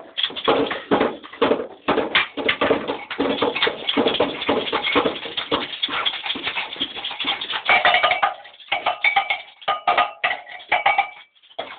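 Improvised percussion from everyday garage objects being struck and rattled in quick, uneven knocks and clatters. A few held pitched tones sound between about eight and eleven seconds in, and the knocking drops out briefly near the end.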